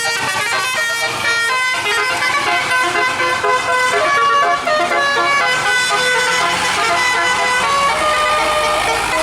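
Bus telolet horn, a multi-tone musical horn, playing a melody of quick stepping notes, with several horn tones sounding together.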